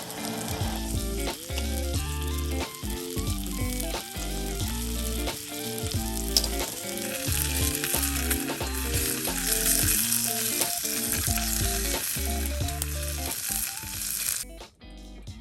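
Thick steak sizzling as it sears, the sizzle getting louder about halfway through and cutting off suddenly near the end, under background music.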